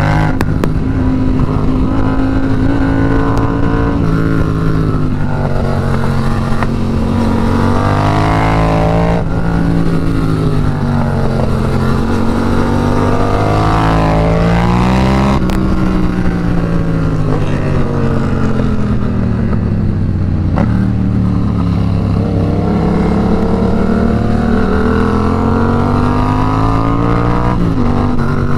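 Yamaha FZ-07's parallel-twin engine heard from the rider's seat, its revs rising and falling several times as the bike is ridden hard through bends, over a steady rush of wind.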